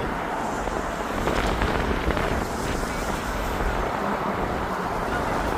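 Steady wind noise buffeting the microphone, a continuous rushing rumble with no distinct events.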